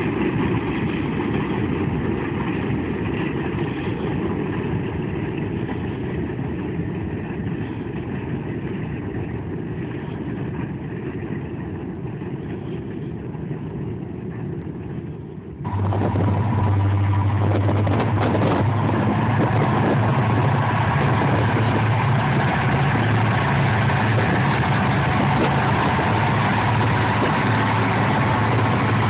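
Steady low rumble for the first half, then after a sudden change about halfway through, EMD diesel freight locomotives passing close, their engines making a loud, steady low drone.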